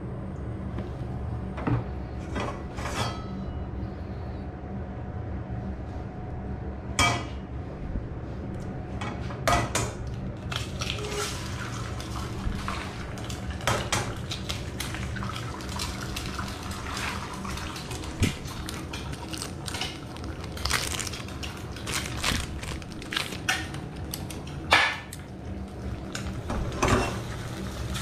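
Eggs frying in oil in a small wok on a gas stove: scattered sharp knocks and clinks as eggs are cracked and chopsticks stir against the pan, over a sizzle that fills in about a third of the way through. A steady low hum runs underneath.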